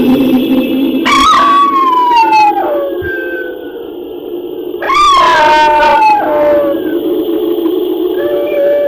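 Wolf howls: two long howls, each jumping up in pitch and then sliding slowly down, about a second in and about five seconds in, with another starting near the end, over a steady low eerie drone.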